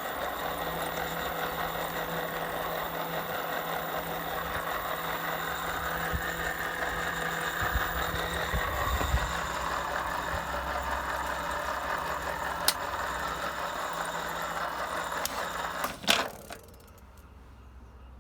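Bafang BBS02 750 W 48 V mid-drive e-bike motor running with a steady grinding rumble, then cutting out with a click about 16 seconds in. The noise comes from the small bearing on the main helical drive shaft, which is clogged with dirt, old contaminated grease and water.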